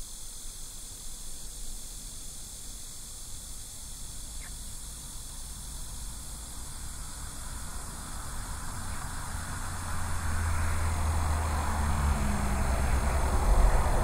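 A vehicle approaching, its low rumble and rushing noise growing steadily louder through the second half, over a steady high-pitched hiss.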